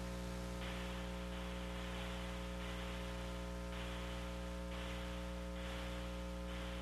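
Steady electrical hum with a hiss of static on the open launch-commentary audio line, with no one talking. The hiss swells slightly a few times.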